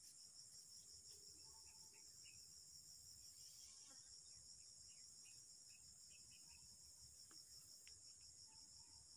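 Faint, steady chorus of crickets: a high, finely pulsing trill.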